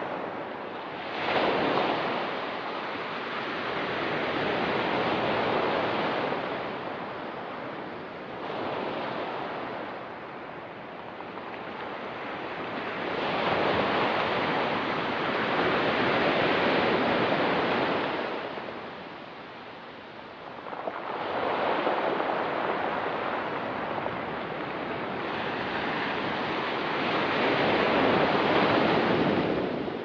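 Ocean surf breaking and washing up a pebble beach, the noise swelling and ebbing in about five surges.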